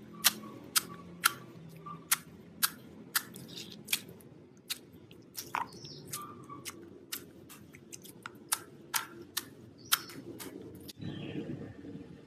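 Slime being pressed and stretched by hand, giving sharp, irregular pops and clicks of trapped air, about two a second, over a soft sticky rustle. About eleven seconds in the clicking stops and gives way to a softer squishing.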